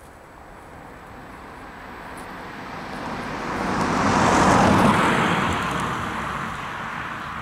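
A vehicle passing close by: a rushing noise that swells to a peak about halfway through, then fades away.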